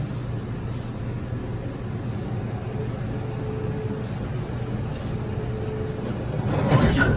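Running noise inside the gangway between carriages of a Taiwan Railways push-pull Tze-Chiang express: a steady low rumble from the moving train. A louder rattling clatter swells up about six and a half seconds in.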